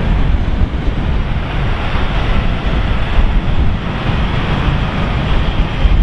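Strong gusty wind buffeting the microphone, with the steady jet-engine noise of an Airbus A320 airliner rolling out on the runway underneath.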